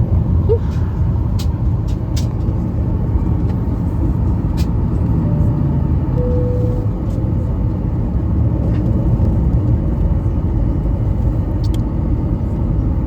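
Steady low rumble inside an airliner's cabin while it waits to take off, from the jet's engines and air system, with a few faint clicks and a brief faint tone about six seconds in.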